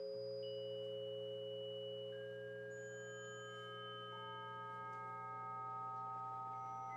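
Electronic music of pure, steady tones: two lower tones held throughout while higher tones enter one after another, every second or so, and overlap them, slowly building a chord. A steady low hum runs underneath.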